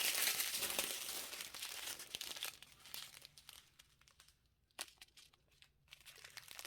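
Small plastic bags of diamond-painting drills crinkling as they are handled and sorted. Steady crinkling for the first few seconds, then a few scattered crinkles and taps.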